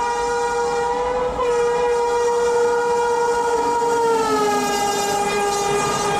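WAP-7 electric locomotive's horn sounding in one long blast as the train passes at speed, its pitch dropping about four seconds in as the locomotive goes by. Under it runs the steady rumble of the coaches on the rails.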